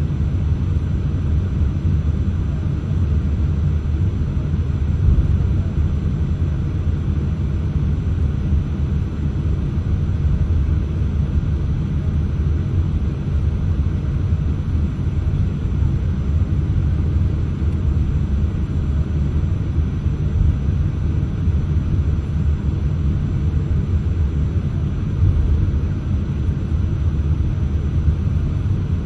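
Steady low rumble inside the cabin of a Boeing 787-8 airliner as it taxis.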